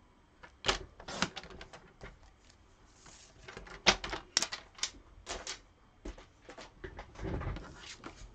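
Irregular light clicks, taps and paper rustles of cardstock and craft tools being handled on a desk, with the sharpest tap about four seconds in.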